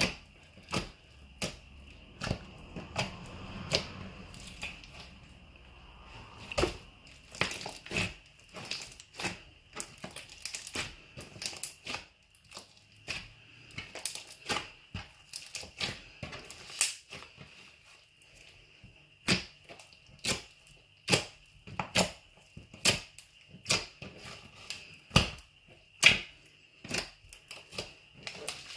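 A large mass of mixed slimes studded with foam beads being kneaded and squished by hand, giving a run of sharp, wet clicking pops, about two a second.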